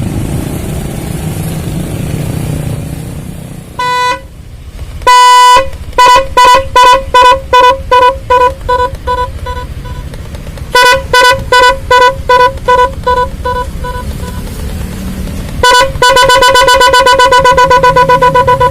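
ONS DL-2017 12-volt multi-sound electronic horn cycling through its tones. After a few seconds of low rumble it gives a short blast and a longer one, then two runs of quick beeps, about three a second, each run fading out. Near the end it switches to a fast continuous warble.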